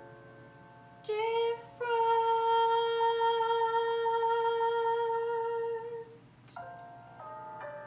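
A girl's solo singing voice holds one long final note for about five seconds, with a brief break just after it starts. Piano accompaniment plays chords before the note and comes back in near the end.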